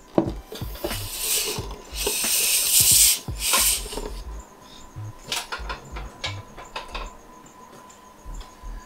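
Plastic snake tub scraping as it slides out of a rack shelf, in a few loud rushes of noise, then knocks and taps as it is set on a stainless-steel table and handled.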